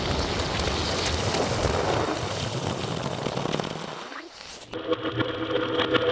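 Extreme-temperature reaction recordings: a loud, dense rushing noise with a low rumble that fades about four seconds in. After a brief dip, a new sound takes over with a buzzing whine made of several steady tones.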